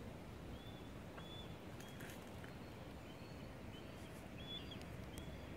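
A bird giving a series of short, high chirps over a faint, steady low rumble of background noise.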